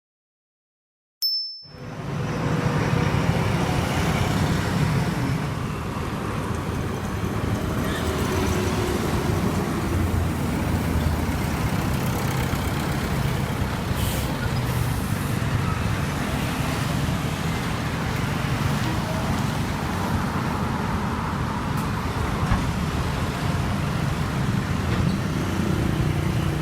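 Street traffic noise with a steady low engine rumble from heavy vehicles, starting suddenly after a second or two of silence.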